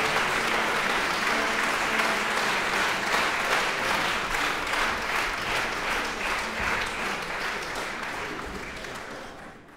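Audience applauding in a concert hall, a dense steady clapping that slowly grows quieter and fades out at the very end.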